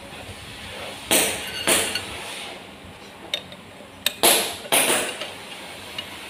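Metal tools clanking against metal: four loud metallic knocks with short ringing tails, two about a second apart near the start and two more in quick succession past the middle, with a few lighter clinks between, during work on the timing gears of a four-cylinder Perkins diesel.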